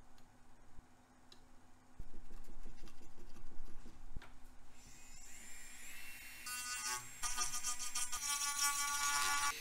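A small handheld rotary tool spins up with a rising whine about five seconds in, then runs with a steady high-pitched whine as its bit grinds away the solder mask on a circuit board. Before that there are low scraping and handling noises with a few clicks.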